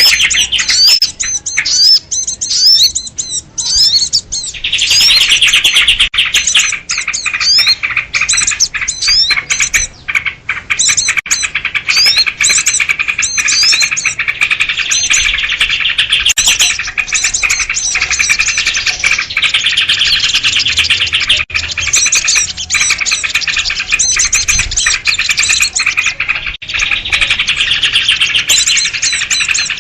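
Dense chorus of many small birds chirping and chattering over one another, a bird-lure call track built on noisy sooty-headed bulbul (kutilang) calls. The calls thin briefly a couple of seconds in, then run thick and unbroken.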